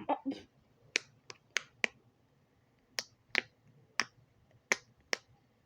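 Bubbles of a silicone pop-it fidget toy being pressed one at a time: about nine sharp pops at an uneven pace.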